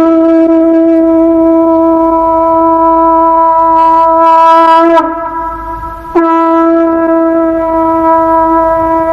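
Conch shell (shankha) blown in long steady blasts on one held pitch, breaking off about five seconds in and sounding again a second later.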